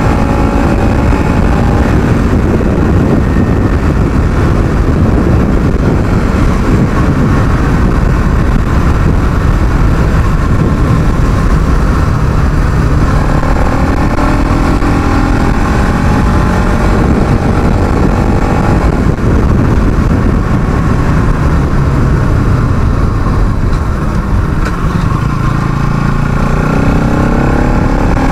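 Bajaj Pulsar NS200's single-cylinder engine under hard riding, revving up through the gears in several rising pulls.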